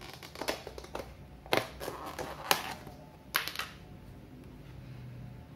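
Clear plastic food box and the plastic bag inside it being handled: a run of clicks, taps and crinkles, with the sharpest knocks about one and a half, two and a half and three and a half seconds in.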